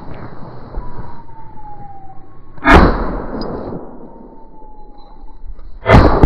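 Two shotgun shots about three seconds apart, each followed by a ringing echo. A thin falling whistle-like tone is heard twice between them.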